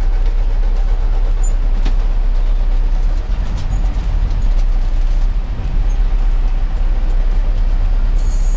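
A coach's diesel engine running with a steady low rumble, heard from inside the cabin up front near the driver, as the bus pulls away slowly.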